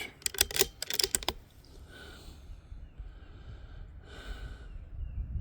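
A quick run of sharp clicks in the first second or so, then two breathy exhales about two seconds apart, with a low rumble coming up near the end.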